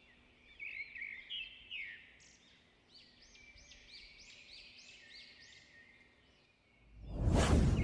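Logo-intro sound effects: a string of bird chirps, repeated arching calls about twice a second, then near the end a loud whoosh with a deep rumble swelling up.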